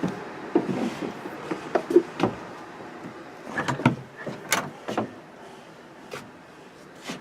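Irregular knocks, clunks and clicks of a boat's hatch or cabin door being handled and opened, with one sharp click near the end.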